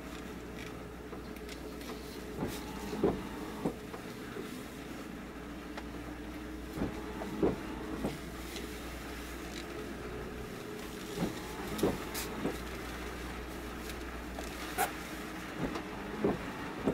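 Steady mechanical hum of harbour machinery, such as a moored boat's engine or generator running, with irregular short knocks and creaks every few seconds.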